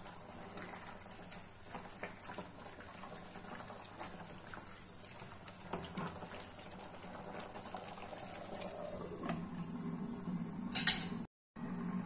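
Spatula stirring a simmering potato and papad curry in a nonstick pan: soft scrapes and light clicks over a steady low bubbling. Near the end, one sharp clink as the glass lid goes on the pan.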